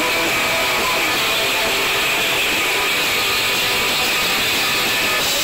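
Rock band playing live with electric guitar, heard as a loud, dense, noisy wash with no clear beat.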